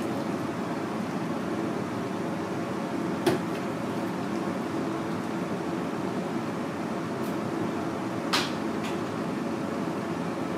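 Steady background hum of a kitchen fan or ventilation, with two short sharp knocks, about three seconds in and again a little after eight seconds.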